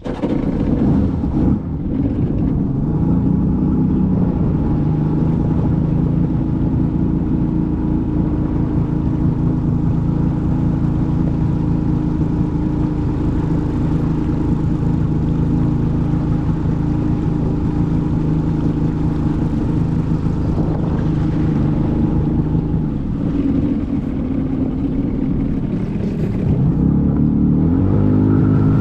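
1997 Arctic Cat TigerShark Monte Carlo 1000 personal watercraft's engine revving up from quiet and running at a steady high speed under a rush of noise. It eases off briefly about two-thirds of the way through and revs up again near the end.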